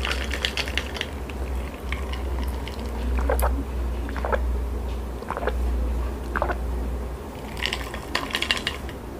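Ice clinking in a glass jar mug of cold water, then four gulps about a second apart as the water is drunk, with the ice clinking again near the end.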